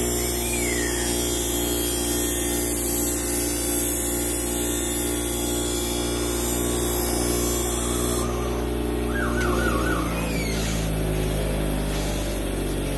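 Bench grinder motor running with a steady hum while the machete's steel edge is held against the wheel, giving a high grinding hiss. The hiss stops about eight seconds in as the blade comes off the wheel, and the motor keeps running.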